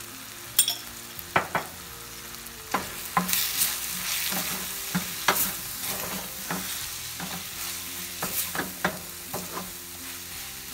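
Wooden spatula stirring and scraping onion-tomato masala frying in oil in a stainless steel pan, with a steady sizzle under irregular scrapes and taps of the spatula against the pan. The chili and coriander powder have just gone in and are being fried into the masala.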